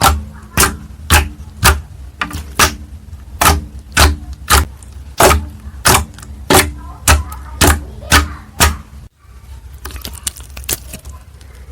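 A steady run of about sixteen sharp taps, roughly two a second, that stops abruptly about nine seconds in, followed by fainter, lighter clicks.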